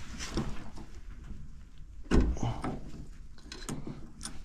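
Scattered knocks, clicks and rubbing from hands handling parts and tools at close range. One loud clunk comes about two seconds in, with lighter clicks around it.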